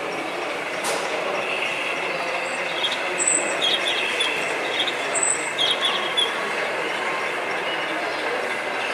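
Model railway diesel multiple unit running along the layout, with a cluster of small clicks over the track in the middle, against a steady hall hubbub.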